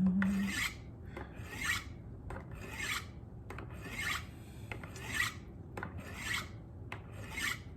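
A steel fillet knife blade being drawn in quick alternating strokes down the brown ceramic rods of a Spyderco Sharpmaker: a rasping scrape nearly twice a second. The blade is getting a 20-degree-per-side microbevel.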